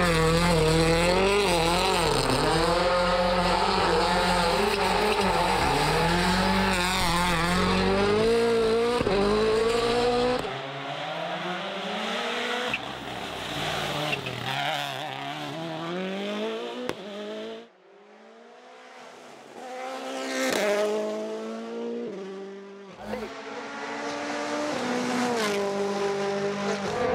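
Rally cars' turbocharged four-cylinder engines at full effort, revving up and dropping back again and again through gear changes, in several shots cut together. There is a brief lull about two-thirds of the way through.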